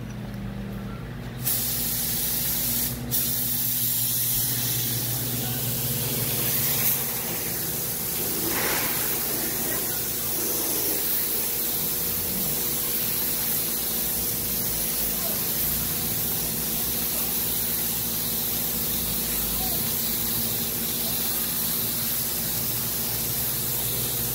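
Gravity-feed paint spray gun on compressed air hissing steadily as clear coat is flow-coated onto a car body panel. The spray starts about a second and a half in, breaks briefly near three seconds, then runs on over a steady low hum.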